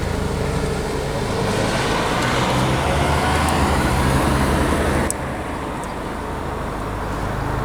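Steady low hum of vehicle traffic. A rushing noise swells over a few seconds, then drops away abruptly with a click about five seconds in.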